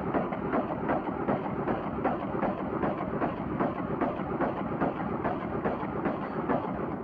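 Vepr-12 semi-automatic 12-gauge shotgun fired rapidly from a drum magazine, about three shots a second in a steady string, stopping near the end.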